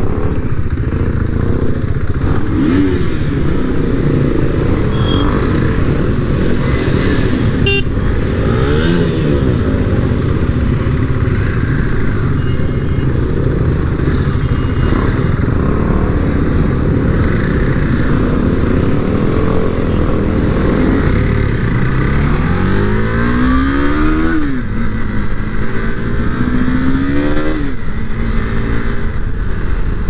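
KTM motorcycles riding along, engines running steadily, with a bike's engine pitch rising twice in the last third as it accelerates.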